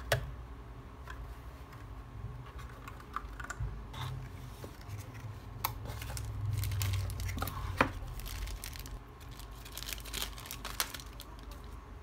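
Royal Kludge RK61 mechanical keyboard and its cardboard box and packaging being handled during unboxing: scattered light clicks and knocks, with sharp knocks at the very start and about eight seconds in, and a quick run of small clicks near the end.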